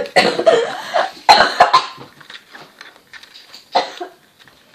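A child coughing several times in a row, loudest in the first two seconds, with another short cough near the end. Faint small clicks of things being handled come in between.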